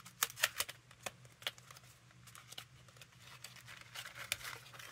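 A box of pencils being opened and handled: several sharp clicks and taps in the first second and a half, then soft rustling and scraping of the packaging.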